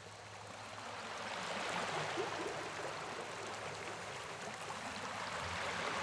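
Ocean surf: small waves breaking and foam washing up onto a sandy beach, a steady rushing hiss that swells over the first two seconds.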